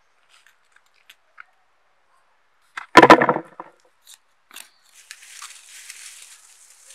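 A handful of small potatoes dropped into a plastic bucket, a brief clatter of knocks about three seconds in. From about five seconds, dry potato vines and leaves rustle as the plants are pulled from the soil. Before that, faint scratches of fingers digging in dry earth.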